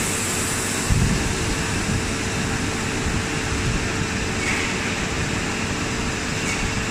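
Steady machinery hum in a factory hall, with a constant tone over a bed of noise, low rumbles on the microphone and a thump about a second in.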